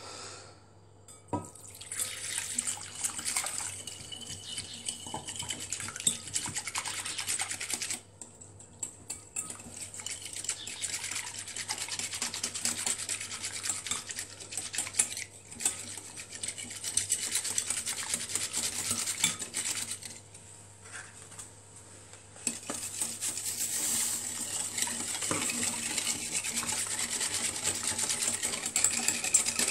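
A whisk beating ingredients in a glass bowl: rapid, steady scraping and ticking strokes against the glass, stopping briefly twice.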